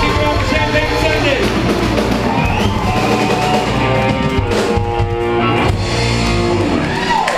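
Live rock band playing loudly, with electric guitar and drum kit, the band holding long notes a little past the middle.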